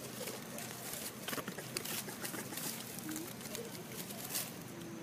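Dry leaf litter rustling and crackling in short scattered bursts, with a few faint short low calls.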